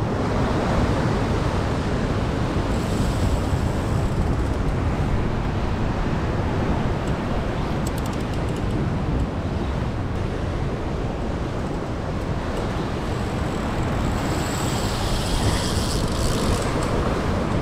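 Wind buffeting the microphone over surf washing against a rock ledge: a steady, rumbling rush of noise.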